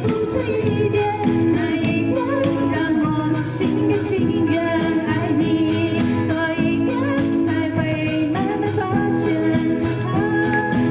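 Pop song with a singing voice over a steady backing accompaniment.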